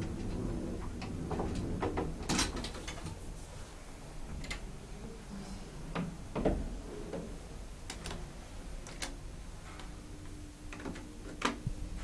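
Elevator running: a low rumble with scattered clicks and knocks, the loudest about six and a half seconds in, and a short steady hum near the end.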